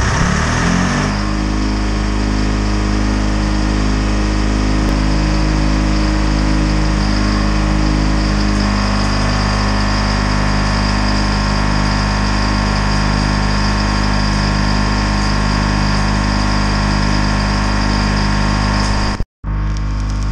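Diesel engines running steadily: the antique B61 Mack truck and the Lincoln 'Screaming Detroit' welder, powered by a Detroit Diesel two-stroke engine. Near the end the sound breaks off for a moment, and the crackle of arc welding comes in over the engine hum.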